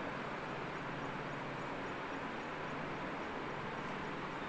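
Steady background noise in a room: an even hiss with a faint low hum underneath, unchanging throughout.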